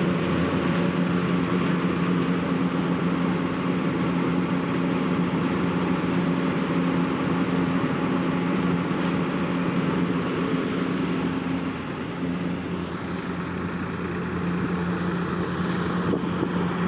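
Tractor engine running steadily while it drives a groundnut-cleaning machine, with pods pouring through the machine, a continuous mechanical drone. The drone eases slightly about twelve seconds in, then picks up again.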